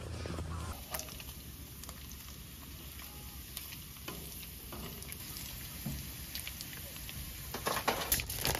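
Bacon strips sizzling in a frying pan, with scattered crackling pops and a spatula turning them. The crackling grows louder near the end.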